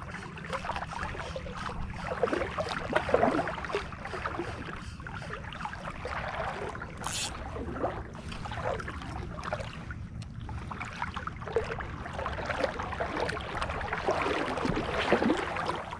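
Shallow seawater swishing and splashing around the legs of someone wading knee-deep, in irregular strokes, over a steady low rumble.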